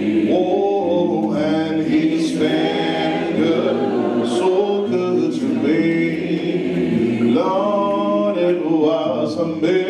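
Church congregation singing a gospel hymn together, unaccompanied, in long held phrases.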